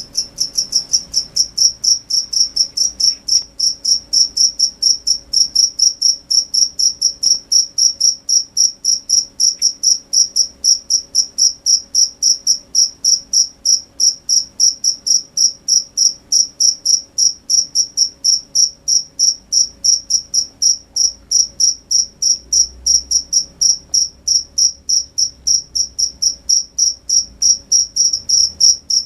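A cricket chirping loudly and evenly, short high-pitched chirps about three to four a second, starting suddenly at the beginning and keeping a steady pace.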